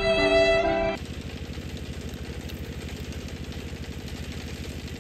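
Violin music cuts off abruptly about a second in. It gives way to a small engine running steadily with a fast, even chug.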